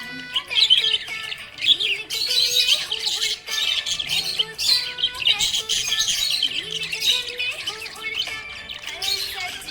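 Budgerigar chirping and warbling in a dense, continuous chatter, over background music.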